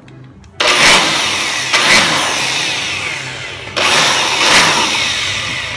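Handheld electric computer blower switched on about half a second in, its motor and rushing air running loud and steady as it blows dust off a motherboard; it jumps louder again a little before four seconds.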